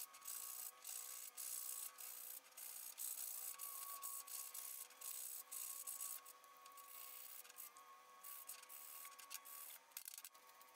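Sandpaper rubbed by hand over a slatted mahogany soap dish in quick, uneven back-and-forth strokes, faint, easing off near the end.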